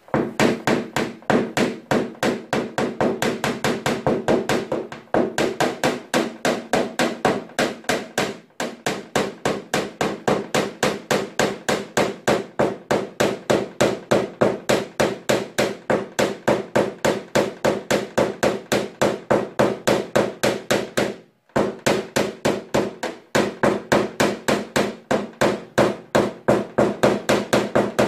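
Paintless dent repair tapping: a small hammer striking a plastic knockdown punch held against an Opel Astra's steel hood, tapping down the metal around a dent. The taps are rapid and even, about five a second, in long runs with a few brief pauses.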